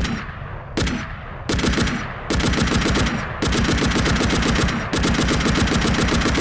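M60 machine gun firing bursts of rapid shots, 7.62 mm. A few short bursts come first, then longer ones, and about five seconds in it runs into sustained automatic fire.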